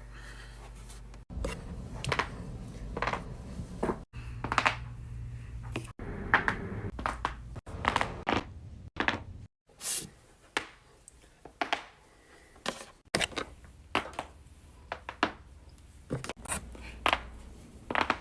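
Joints cracking during chiropractic neck and back adjustments: many sharp cracks and pops, often several in a quick cluster, with a low room hum behind some of them and sudden changes of background between short clips.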